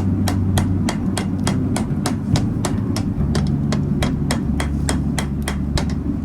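Hammer striking hot steel in a steady rhythm, about three blows a second, rounding a knife's handle into a cylindrical shape and straightening it. A steady low rumble runs underneath.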